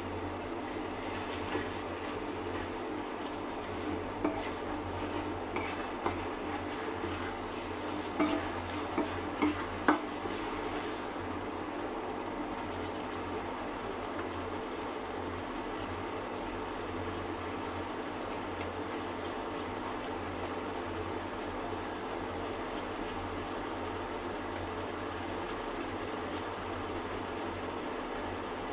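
Food sizzling steadily as it fries in oil in a cooking pot, with a metal spoon knocking and scraping against the pot several times in the first ten seconds or so.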